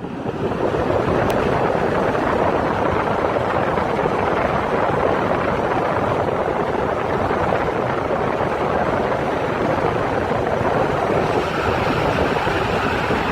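Electric fan switched on, spinning up within about half a second, then running steadily with a loud rush of air buffeting the microphone.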